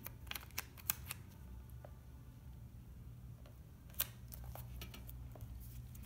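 Handling of a peel-off sticker and the paper album page: a few sharp paper clicks in the first second as the sticker is placed, then a single sharp tap about four seconds in as it is pressed flat onto the page. A steady low hum runs underneath.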